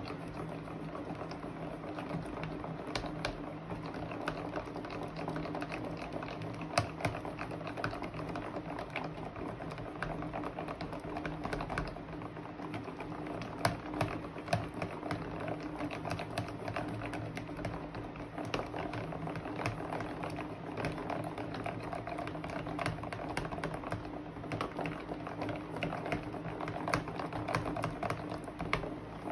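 Plastic spoon stirring thick, sticky slime in a plastic tub: a dense, irregular run of small clicks and squelches, over a steady low hum.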